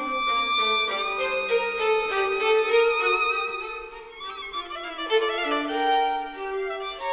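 Background music: a violin playing a melody, one note gliding into the next.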